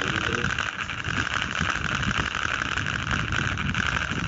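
Washing machine on its spin cycle: a steady whir with an uneven low rumble from the drum.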